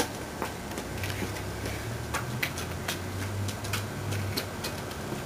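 Scattered light clicks and scuffs of a toddler's steps and a small plastic ball on a concrete patio. A low steady hum sounds from about a second in until past four seconds.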